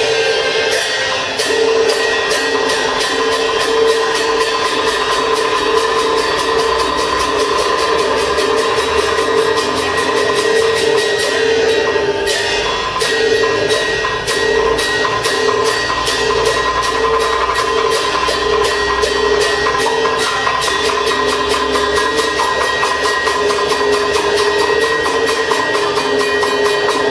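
Teochew opera instrumental ensemble playing: a fast, even beat of sharp percussion clacks under long held notes from a melody instrument.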